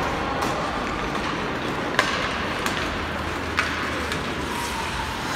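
Ice hockey game in play heard from the stands: a steady wash of rink noise with skates on the ice, broken by four sharp clacks of sticks and puck.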